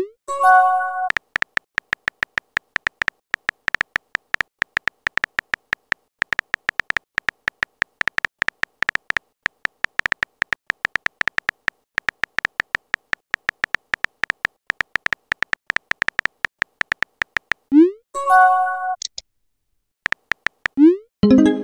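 Simulated phone-keyboard typing: a rapid, even run of short synthetic key clicks as a text message is typed out. A short rising whoosh and a bright chime of a few notes mark messages being sent or arriving, at the start and again about eighteen seconds in, with another whoosh near the end.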